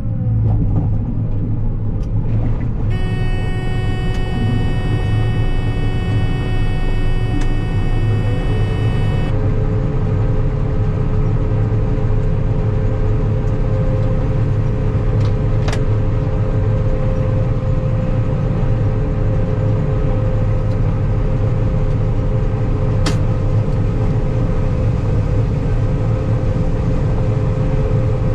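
Combine harvester running steadily with a deep, even engine hum. A few seconds in, a high steady tone sounds for about six seconds, then stops; two short clicks come later.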